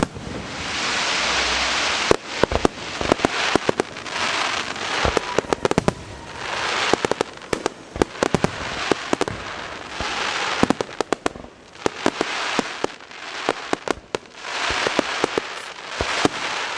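Aerial fireworks shells bursting: about five hissing, crackling washes, each lasting a second or two, mixed with many sharp pops and bangs that come in quick clusters.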